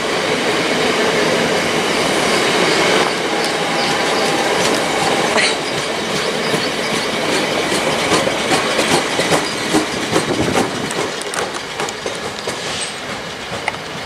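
A passing train of Southeastern Electrostar units and green-liveried coaches, its wheels rumbling on the rails, then clicking rapidly over rail joints and pointwork as it draws away, gradually getting quieter.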